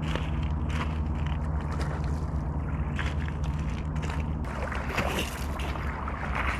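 A motor hums steadily until its low drone drops away about four and a half seconds in, over a rough, continuous background noise with scattered clicks.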